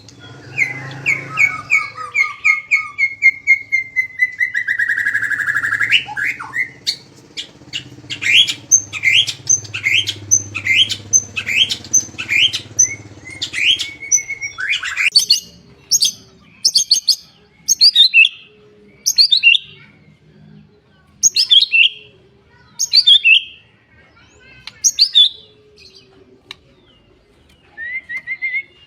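Songbird song: first a falling series of clear whistled notes ending in a buzzy slurred note, then a fast run of sharp downward-sweeping notes about two a second, then loud single sharp chirps about once a second.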